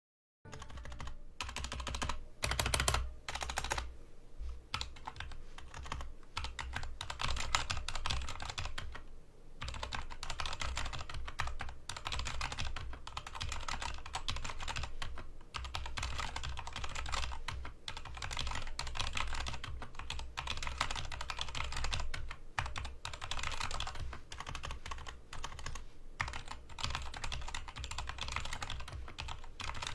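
Fast, continuous typing on an AJAZZ K685T 68-key hotswap mechanical keyboard, a dense run of key clicks with a short lull about nine seconds in.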